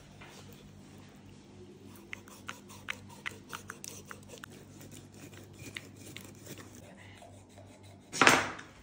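Knife cutting open a sturgeon's belly: a run of short, crisp clicks and snips as the blade slices through the skin, over a steady low hum. About eight seconds in comes one brief, loud rush of noise.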